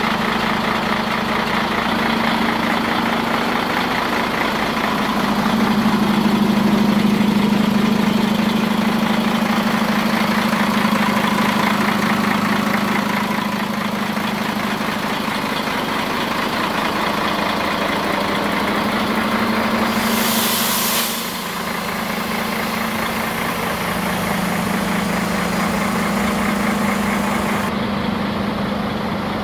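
Mercedes-Benz Axor 3340 tipper's straight-six diesel engine idling steadily, with a short hiss about two-thirds of the way through.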